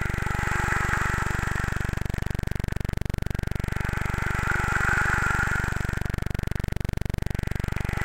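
Indonesian rain stick tipped back and forth: a soft, hissing rattle of falling fill that swells and fades about every four seconds. Under it runs a steady low synth drone from background music.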